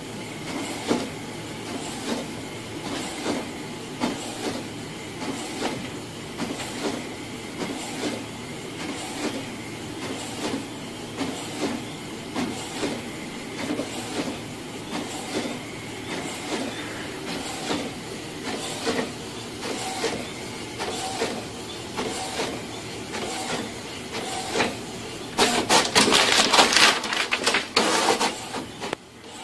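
Desktop printer printing, with a regular clack about once a second over a steady mechanical hum. Near the end, a louder burst of rustling and clattering lasting a couple of seconds.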